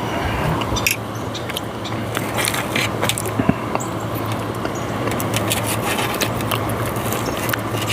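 Close-miked chewing of steak, with many short wet mouth clicks and smacks, over a steady low hum and background noise.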